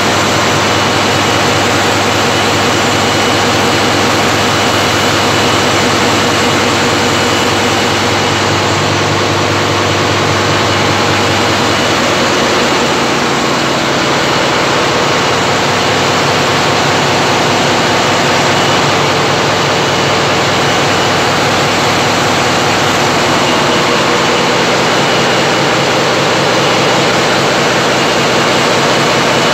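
Loud, steady engine-room din of large diesel engines running, with a low hum that drops away about twelve seconds in.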